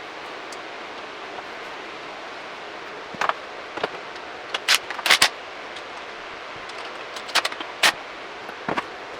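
Sharp metallic clinks and taps, in small clusters over the second half, from tools and fasteners handled during work on a motorcycle's front mudguard, over a steady hiss.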